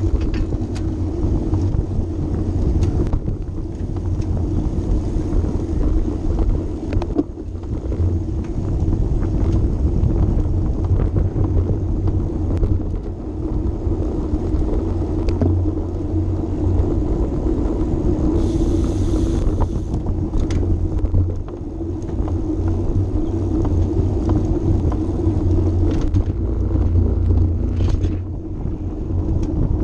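Wind buffeting the microphone of a bike-mounted camera, with steady tyre rumble from a road bike riding at race speed. A brief hiss comes about two-thirds of the way through.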